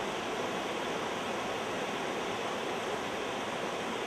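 A steady, even rushing noise with no pitch or rhythm.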